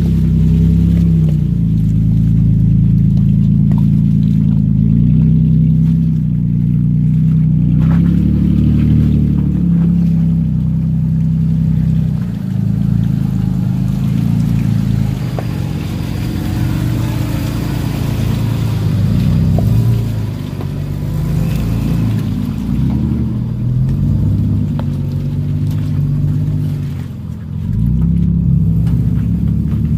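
Pickup truck engine pulling under load on a trail, its pitch rising and falling as the throttle is worked, with short easings off a few times.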